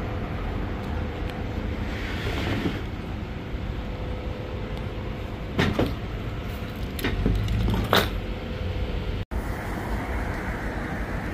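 Steady low outdoor rumble, like traffic, with a few short sharp crackles about six and eight seconds in as the paper wrapping on a burrito is pulled open.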